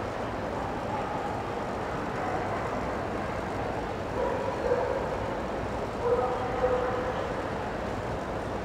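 Steady hubbub of a large indoor show hall. A dog barks a couple of times in the background, about four and about six seconds in.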